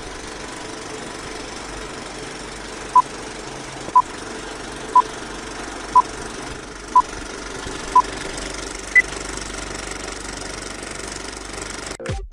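Film countdown leader sound effect: the steady running clatter of an old film projector, with a short beep once a second six times, then one higher beep a second later. The clatter breaks off about twelve seconds in.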